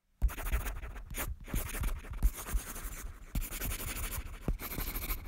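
Pencil scratching on paper in quick sketching strokes, starting suddenly after silence, with a few soft knocks from the pencil and paper on the desk.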